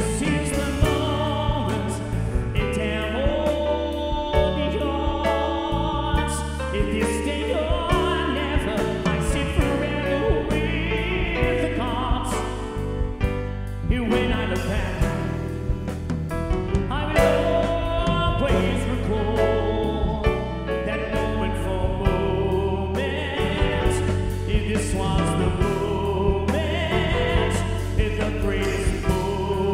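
Music with a steady beat, deep bass and choir-like singing.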